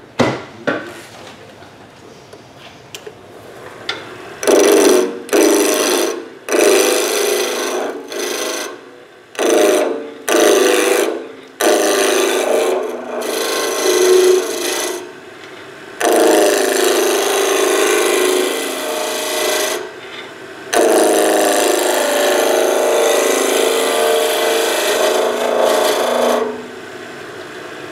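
Skew chisel cutting into wood spinning on a lathe, a rasping shaving sound. A quick run of short cuts comes first, then two longer steady cuts of several seconds each.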